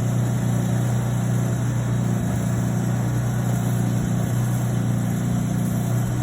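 An engine running steadily at a constant speed, a low, even drone.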